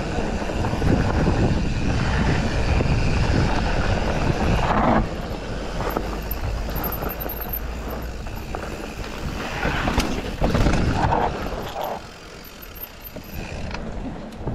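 Mountain bike being ridden along a dirt forest trail: steady wind buffeting on the chest-mounted camera's microphone, with tyre roar and the bike rattling over the ground. A sharp knock about ten seconds in, and the noise drops for a couple of seconds near the end.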